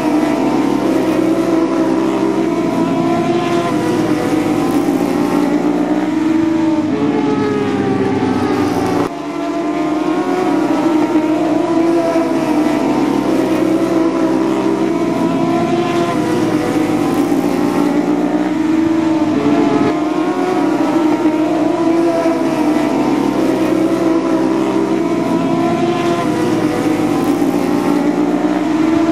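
Several superbike racing motorcycle engines running at high revs, their pitch rising and falling as they accelerate and back off. The sound drops out sharply for a moment about nine seconds in and then picks up again.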